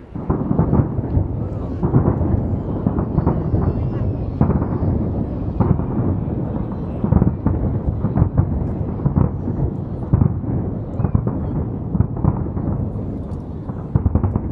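Fireworks display: a dense barrage of aerial shells bursting, the booms overlapping almost without pause, starting abruptly at the beginning.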